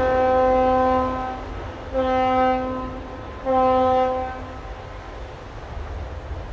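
Ship's horn blowing at a ship launch: a long blast that ends about a second and a half in, then two shorter blasts, over a low wind rumble.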